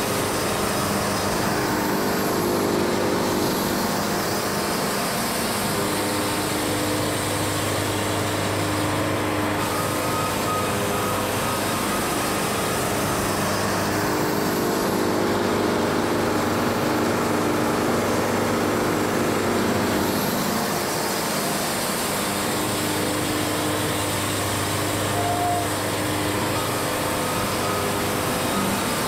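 Wood-Mizer LT70 Wide band sawmill running steadily: its engine hums continuously, with tones that shift and change every few seconds as the mill works.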